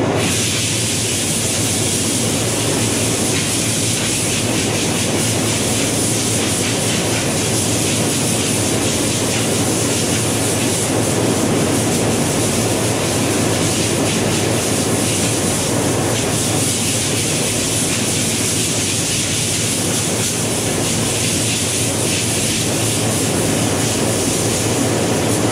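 High-pressure nitrogen from a bottle blasting through a clogged refrigeration condenser coil to clean it, which the technician blames for the freezer's high head pressure. It is a loud, steady hiss that starts and stops abruptly, over the low hum of running condensing units.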